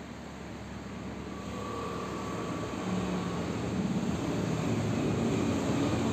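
A steady engine-like rumble with a faint whine, growing louder over several seconds.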